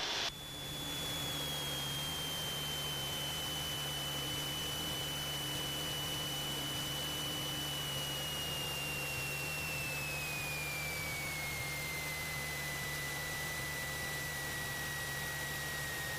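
Cessna 172SP cabin noise: its Lycoming four-cylinder engine and propeller running steadily on final approach, with a thin high whine that slides down in pitch about ten seconds in as the engine is throttled back for the landing.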